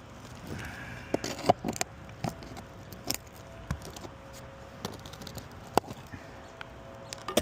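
Irregular sharp clicks, cracks and scrapes from roof shingles being pried up and handled, with a cluster of louder snaps between about one and two seconds in.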